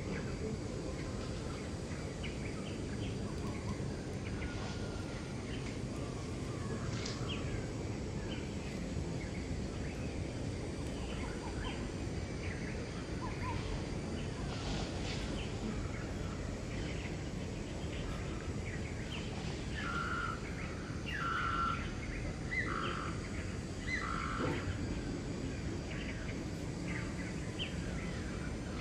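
Outdoor ambience of many short bird chirps scattered over a steady low background rumble, with a run of four louder short calls about twenty seconds in.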